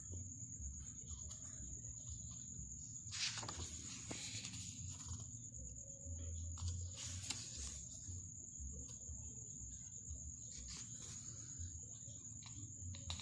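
Intermittent rustling and scraping of packaging being handled, a few short bursts over a steady high-pitched whine and a low hum.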